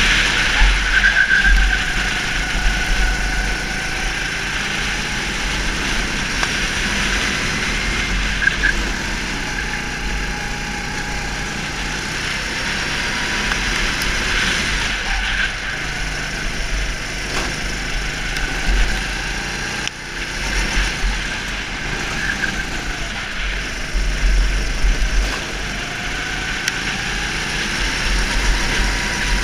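Go-kart engine heard from on board the kart, its pitch rising and falling every few seconds as it accelerates and slows through corners, with wind buffeting the microphone.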